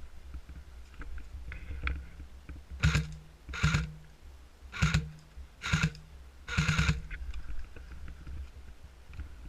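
Five short crunching noises about a second apart, over a steady low rumble on the microphone.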